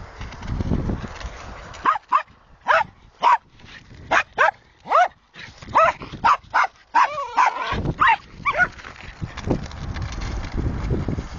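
A dog barking in a quick series of short, high-pitched barks, about a dozen, starting about two seconds in and stopping near the end. Wind rumbles on the microphone before and after the barking.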